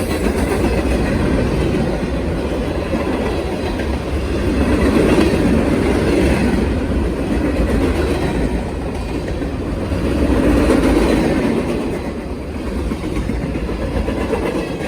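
Norfolk Southern train's cars rolling past: a steady, loud rumble and clatter of steel wheels on the rails, swelling twice.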